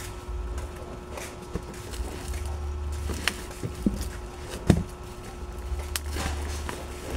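Cardboard product box being handled and opened: scattered taps, scrapes and knocks, the loudest a sharp thump a little under five seconds in. A steady low hum runs underneath.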